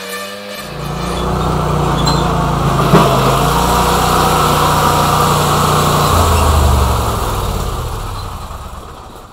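Riding lawn mower engine running steadily, its note shifting lower about six seconds in, then fading away toward the end. A single sharp click about three seconds in.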